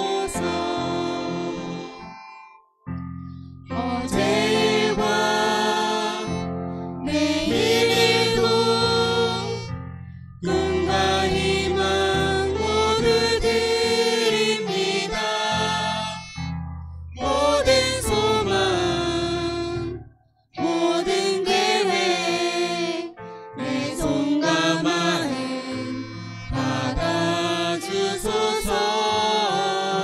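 Contemporary Christian worship song: a man and a woman singing into microphones, accompanied by acoustic guitar, violin and keyboard. The singing comes in phrases with short breaks, and the sound drops almost to nothing briefly about three seconds in and again about twenty seconds in.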